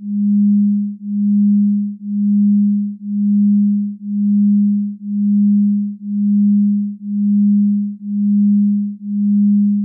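Electronic sine tone, a low single pitch with no overtones, pulsing evenly: it swells and fades about once a second, ten times.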